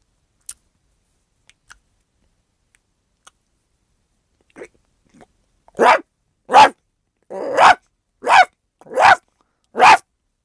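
A person imitating a dog barking with the voice: after a few faint clicks, a run of short, loud barks starting about halfway through, roughly one every 0.75 seconds.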